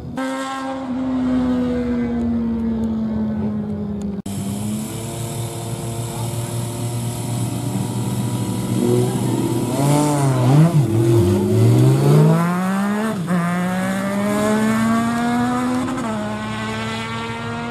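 Drag-racing motorcycle engines. For about four seconds one engine note falls slowly; after an abrupt break, a bike's engine blips up and down at the start line. It then launches and climbs steadily in pitch, shifting about sixteen seconds in.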